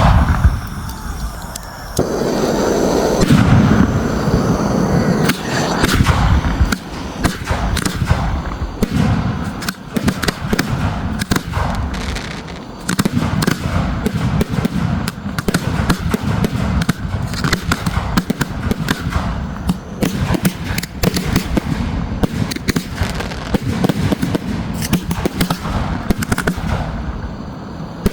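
Fireworks display: a dense, continuous barrage of crackling, popping bangs over deep booms, getting louder about two seconds in.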